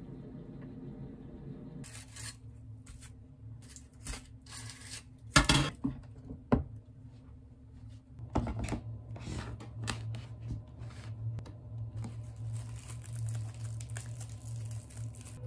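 Handling noises while making a drink: rustling and crinkling of a plastic bag and a few sharp knocks of a glass or bottle, the loudest about five and a half seconds in, over a low steady hum.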